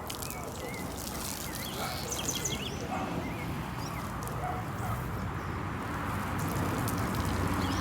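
Water from a garden hose spraying onto the side of a Volkswagen Kombi van, a steady hiss that grows a little louder near the end. Birds chirp briefly a couple of seconds in.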